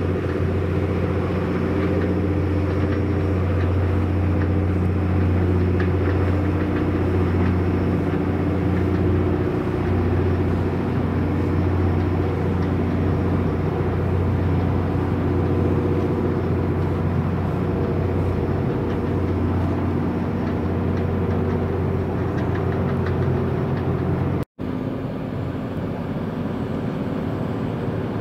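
Diesel engine of a small coastal container ship running steadily while berthing: a low hum with several steady tones above it. The sound drops out for a moment about three-quarters of the way through and comes back slightly quieter.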